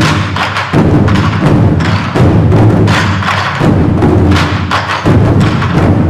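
A large ensemble of Chinese barrel drums struck with sticks, playing together in a fast, dense pattern. Heavy accented unison strokes land about every one and a half seconds, with quicker strokes filling between them.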